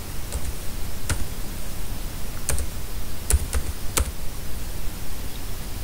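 Keystrokes on a computer keyboard: a handful of separate key presses, unevenly spaced, as a word is typed letter by letter over a steady hiss.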